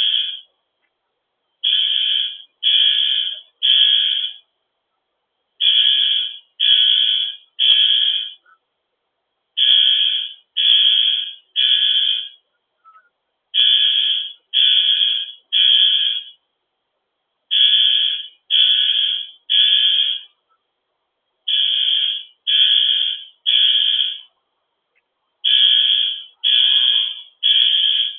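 Building fire alarm horn sounding the temporal-three evacuation signal: three beeps, a pause of about a second and a half, then three more, repeating steadily.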